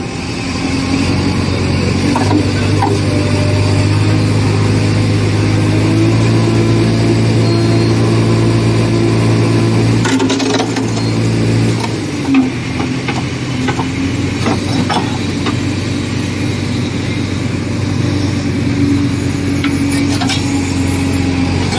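Heavy diesel engine running steadily under load as a chain hooked to a backhoe bucket hauls a loaded trolley stuck in mud. The engine works harder from about two seconds in and eases off around twelve seconds in. Short metallic clinks of the chain come through now and then.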